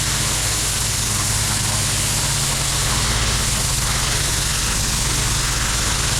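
Pressure washer's engine running steadily under a constant hiss of high-pressure water spraying onto pavers.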